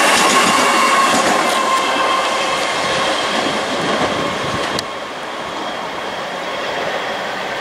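Electric multiple-unit passenger train running past close by: rumbling wheel and rail noise with clatter and a faint steady squeal of the wheels. About five seconds in there is a click and the noise suddenly drops to a quieter, steady rumble.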